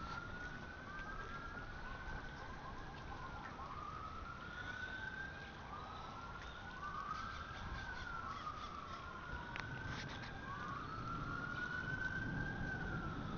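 Several emergency vehicle sirens wailing, faint and overlapping, each rising and falling every couple of seconds, over a steady hiss of wind and rain.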